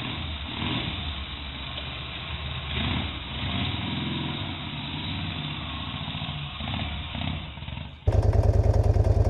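AJS S3's 496cc side-valve 50-degree V-twin running, its revs rising and falling a few times around the middle. About eight seconds in, it cuts to a different motorcycle V-twin, louder, with a strong even pulsing beat.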